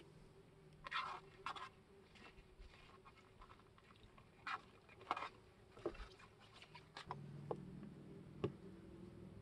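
Quiet scattered soft clicks and crackles at irregular intervals. A faint low buzz comes in about seven seconds in.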